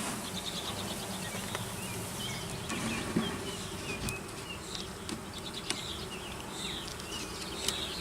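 Honey bees buzzing in a steady hum around an open hive during an inspection, which the beekeeper hears as a happy colony. Faint high chirps and a few light clicks sound over the hum.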